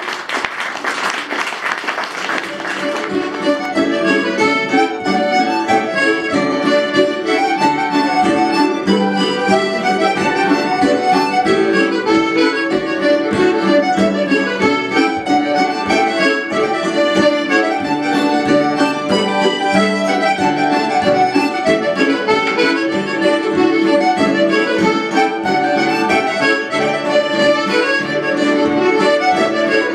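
Acoustic folk band playing an instrumental tune on fiddle, mandolin, hammered dulcimer, button accordion and acoustic guitar, with the accordion carrying the melody most prominently. The ensemble grows fuller about three seconds in and keeps a steady, lively rhythm.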